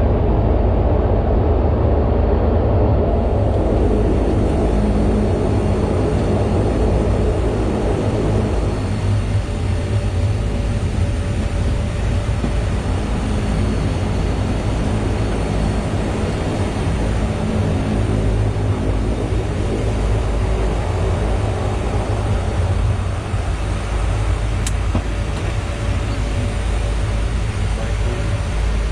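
Twin turboprop engines of a De Havilland Canada Dash 8 running loud and steady: a continuous low drone with a few steady tones above it.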